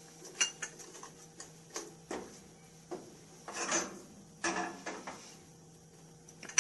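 Wooden spoon stirring thick sauce in a stainless steel frying pan: irregular light knocks and longer scrapes against the pan.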